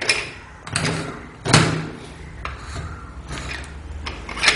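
Budget aluminium camera tripod being handled: a series of clicks and knocks as its pan-tilt head is turned and adjusted by hand, the sharpest about a second and a half in and near the end.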